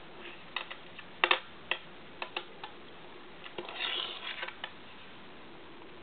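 Small magnetic Buckyball spheres clicking as they snap together: scattered sharp clicks, the loudest a quick double click just over a second in, then a short rattling run of clicks around four seconds in.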